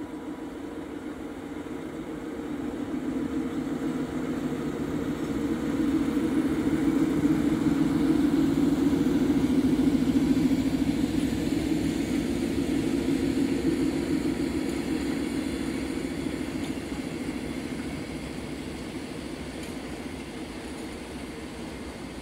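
Freight train passing, with diesel locomotives in the consist. Their steady engine hum swells over a few seconds as they come by, is loudest for several seconds, then fades into the lower rolling of the wagons.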